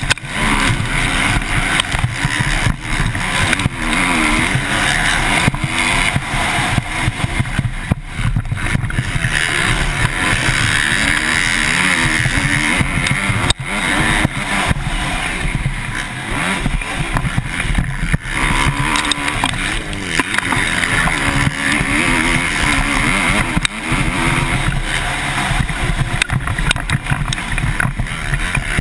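Motocross bike engine running hard, its pitch repeatedly rising and falling as the rider opens and closes the throttle through the track, heard through a helmet-mounted camera.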